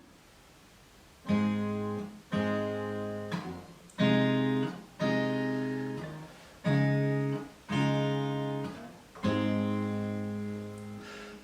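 Acoustic guitar playing a slow instrumental intro: seven strummed chords, each struck sharply and left to ring out, starting about a second in.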